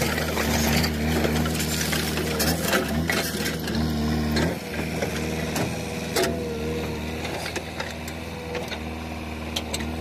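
JCB 3DX backhoe loader's diesel engine running under working load while the backhoe bucket scrapes through loose stones, with scattered clatters of rock. The engine note shifts about four and a half seconds in.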